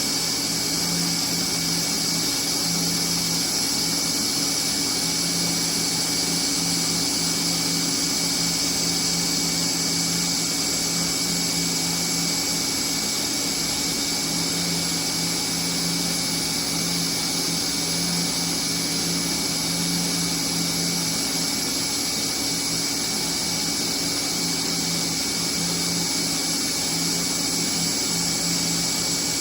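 TIG welding arc running steadily at about 130 amps: an unbroken hiss with a low steady hum beneath it.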